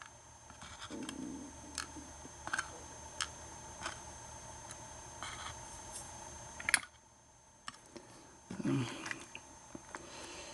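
Scattered light clicks and taps of the small metal parts of a gutted American 1100 padlock (pins, springs and plug) being handled, with one sharper click about two-thirds of the way through and a soft rustle near the end.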